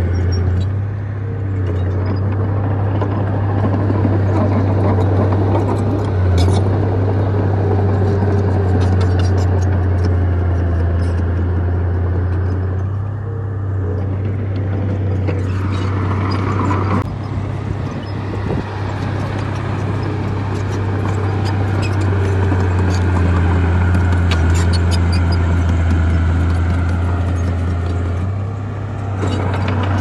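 Small crawler bulldozer's diesel engine running steadily with a deep hum while it pushes rocky dirt, with scattered clicks and scraping from the tracks and stones.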